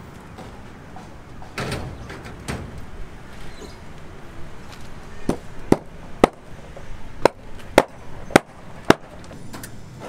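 Building-site knocking: a run of about eight sharp strikes, roughly two a second, starting about five seconds in, after a couple of duller knocks near two seconds.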